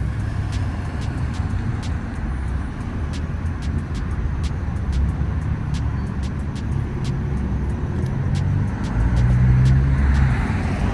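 Road traffic: car engines running and passing, a steady low rumble that grows louder near the end.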